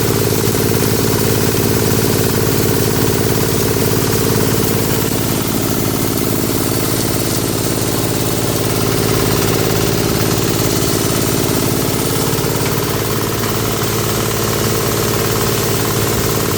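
Multipurpose shredder-grinder machine running steadily with a loud, even mechanical drone that drops slightly in level about five seconds in.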